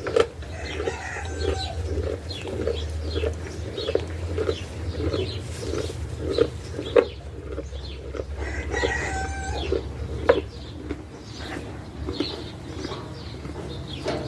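An animal making soft, rhythmic low calls, about two or three a second, with two longer, higher-pitched calls, about a second in and about nine seconds in. Two sharp clicks stand out, around seven and ten seconds in.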